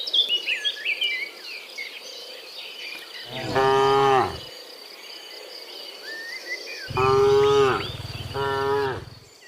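Cows mooing: three long moos, one about three seconds in and two close together near the end.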